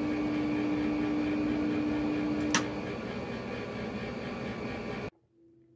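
Vintage 1949 Motorola VT73 tube television running, giving a steady hiss with a hum tone. A sharp click comes about two and a half seconds in, and the hum stops soon after while the picture collapses to a line. The sound cuts off abruptly near the end.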